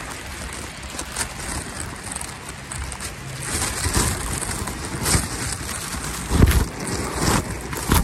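Wind noise buffeting the microphone, with footsteps crunching in snow about once a second that grow louder from about halfway in.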